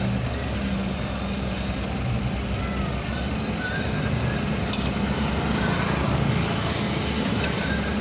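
Excavator diesel engine running steadily under work, a continuous low hum with a wide mechanical noise over it.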